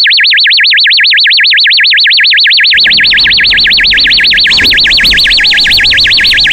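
Fire alarm sounder going off with a loud warbling tone that sweeps rapidly up and down, about nine times a second. It starts abruptly.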